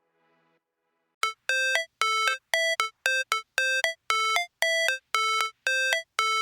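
Background music: after about a second of silence, a string of short, bright electronic beeping notes repeats at about two a second, like a ringtone melody.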